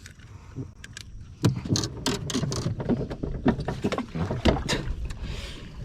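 A quick, irregular run of knocks, taps and clatter on a small fishing boat, starting about a second and a half in: gear, net or fish handling against the hull and deck.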